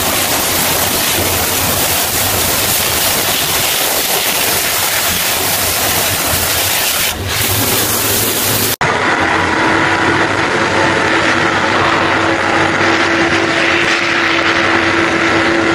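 Pressure-washer jet blasting caked mud off a tank's road wheels and tracks: a loud, steady hiss of spray on steel. About nine seconds in it cuts off abruptly, giving way to a steady mechanical hum with several held tones.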